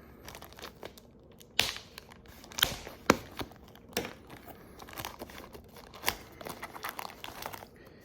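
Packaging of a Pokémon card booster box crinkling and tearing as the box is unwrapped: a string of sharp crackles, the loudest about three seconds in.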